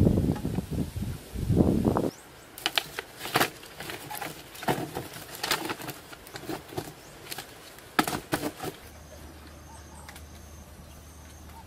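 Dull thuds of wooden poles pounding a mud wall, then a series of sharp clicks of wooden sticks knocking together as they are handled. Near the end it goes quieter, with a faint repeated high chirp.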